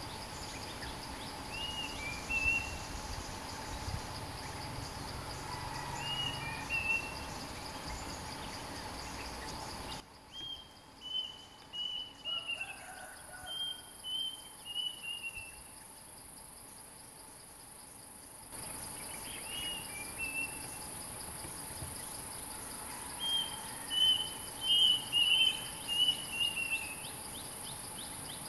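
Stripe-throated bulbuls calling in short groups of whistled notes, loudest near the end, over a steady high drone of insects. The calls are a territorial exchange between the caged decoy and the wild resident bird at the trap.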